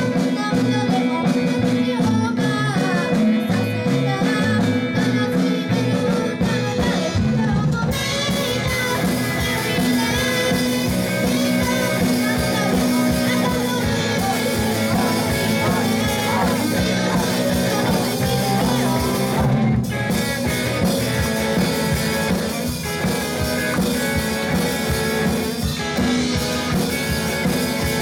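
A live rock band playing a song with guitar, drum kit and singing; the full band with cymbals comes in about eight seconds in, with a short break near the twenty-second mark.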